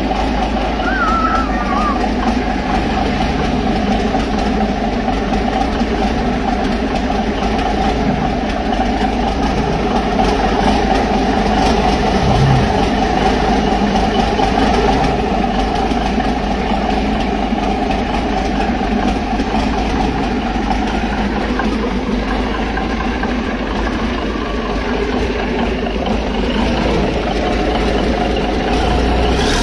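Large turbocharged diesel engine running steadily on a test stand during a run-up test. Its even running note holds with no change in speed.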